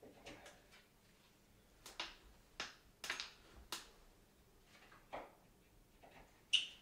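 Hand tools clicking and scraping against the old rusted metal bracket and screws of a ceiling light box as it is worked loose: about half a dozen sharp, irregular clicks, the loudest near the end.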